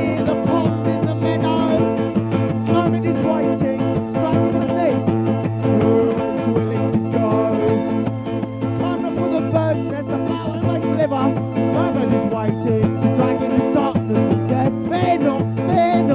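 Band recording playing: guitar over steady, sustained keyboard tones.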